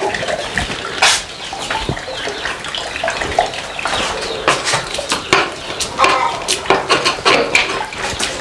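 A spoon knocking and scraping against a wooden form as thick doce de leite is spread and pressed into it, in irregular knocks, with hens clucking in the background.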